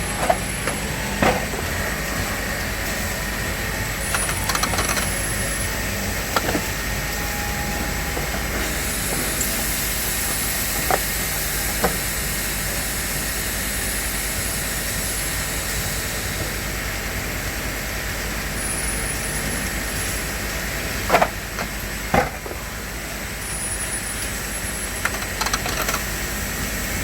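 Factory bottling line with its conveyor and bottle-filling machine running: a steady mechanical hum and hiss, with scattered sharp clicks and knocks as bottles move through, two louder knocks about three quarters of the way through.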